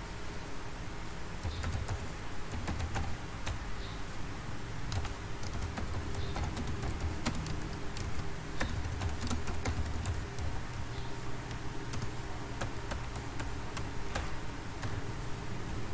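Typing on a computer keyboard: irregular key clicks, over a low steady hum.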